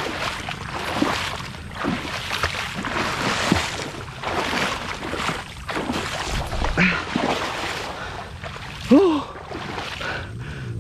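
Shallow water splashing and sloshing as someone wades through a tidal creek carrying a cast net, in a run of irregular surges. A short voiced exclamation rises and falls about nine seconds in.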